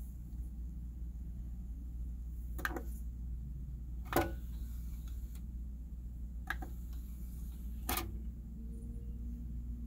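Kyocera DA-310CX CD player's disc tray mechanism cycling open and then closed: four short clicks and clunks about two seconds apart, the loudest around four seconds in, over a steady low hum.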